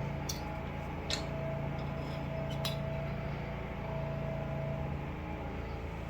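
A few light metallic clicks, three sharp ones in the first three seconds, as thread is worked through the guides of an industrial post bed sewing machine, over a steady low hum.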